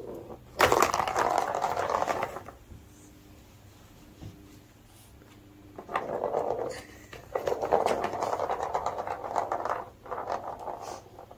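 A ball rolling and rattling through a plastic cat track toy, batted along by kittens, in several bursts of one to two and a half seconds with quiet gaps between.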